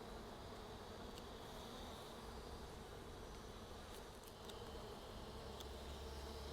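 Honeybee swarm buzzing steadily as the bees move down into a hive box, a faint continuous hum with a few light ticks.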